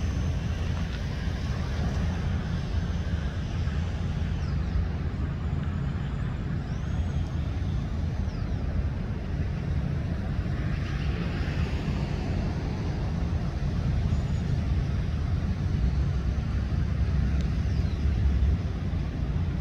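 A motor vehicle's engine rumbling steadily nearby, a low continuous drone with road-traffic noise mixed in.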